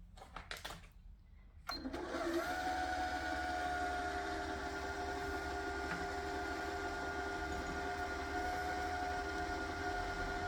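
Janome M100 QDC sewing machine winding a bobbin at medium speed: after a few light clicks, its motor starts about two seconds in and runs with a steady, even whine.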